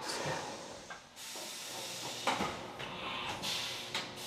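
CNC milling machine starting its cycle: a steady hiss of air, with a few louder bursts, as the automatic doors shut and a tool is loaded from the carousel into the spindle.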